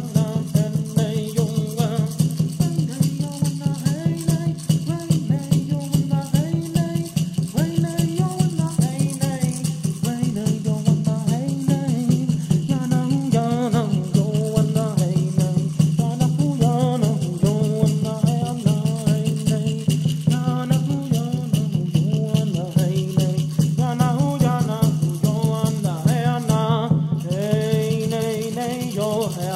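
Ceremonial music: a peyote gourd rattle shaken in a fast, steady rhythm under a chanted melody, over a low steady drone.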